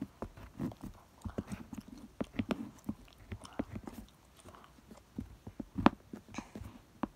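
Colored pencil scratching on paper in short, irregular strokes, with scattered small clicks and taps as the pencil and paper are handled.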